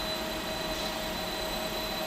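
Robotic MIG welding: a steady arc hiss with a fixed high whine over it.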